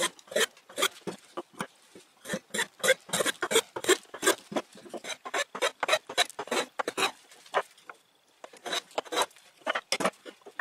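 Metal bench plane shaving a pine bar in quick repeated strokes, about two to three a second, with a pause of about a second near the end before a few more strokes.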